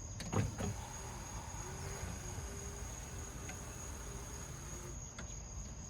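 Electric motor of a MINI Cooper S rear window regulator running with a faint steady hum for about four and a half seconds, as the regulator lowers the glass. The regulator has just been rebuilt with a repair kit and is now working. Crickets chirp steadily throughout.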